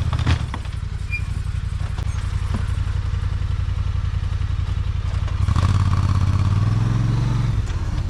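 Engine of a plow vehicle running while pushing snow. Its note rises and gets louder about two-thirds of the way through, holds for a couple of seconds, then drops back near the end. A couple of knocks near the start.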